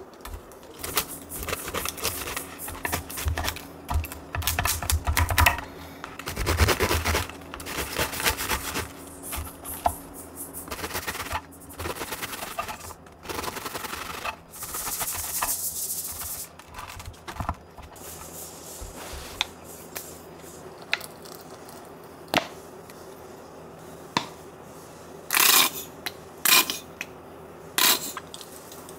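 Serrated bread knife sawing through a crusty baguette on a wooden board, the crust crunching and crackling with each stroke and the blade knocking the board. Near the end, a few clinks of a metal spoon against a glass mixing bowl.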